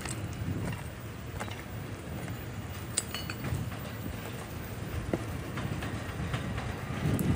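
Rail yard background noise: a steady low rumble with scattered light clicks and one sharp metallic clink about three seconds in, growing louder near the end.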